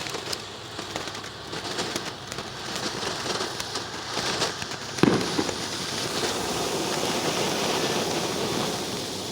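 Fireworks crackling steadily, a dense patter of small pops like rain, with one sharper bang about five seconds in.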